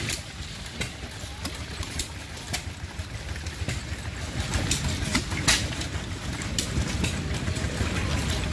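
Stationary gas engine running with irregular clicks over a low rumble, driving a water pump whose outflow splashes into a bucket; the sound grows louder about halfway through.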